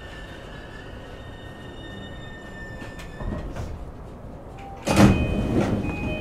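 Inside an E233 series 5000 electric train: the steady whine of the drive fades out as the train comes to a stop, with a few knocks about three seconds in. A sudden loud rush near the end is the passenger doors sliding open.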